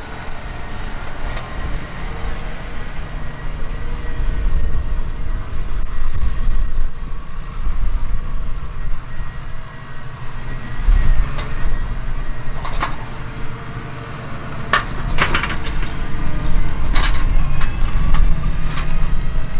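John Deere 8R 370 tractor's diesel engine running steadily with a deep rumble while pulling a liquid-nitrogen side-dress applicator, a faint steady whine above it. Several short sharp knocks or rattles come in the second half.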